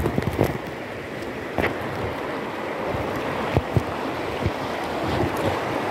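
Fast river water rushing steadily around an inner tube, heard close up, with wind on the microphone and a few short low thumps.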